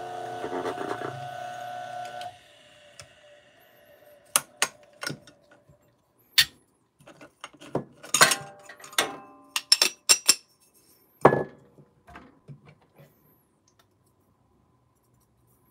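DF64 flat-burr espresso grinder running with a steady hum, stopping about two seconds in. Then a run of sharp metal clinks and taps as the dosing cup and the portafilter's dosing funnel are handled.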